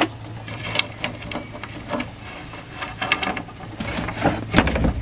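Steel chain rattling and clinking in irregular clusters as it is fed link by link through a drilled hole in a wooden bench lid.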